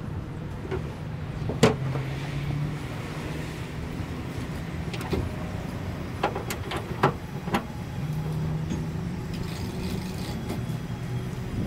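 Steady low hum of an idling engine, with a few sharp knocks and clanks, most of them in a quick cluster around the middle.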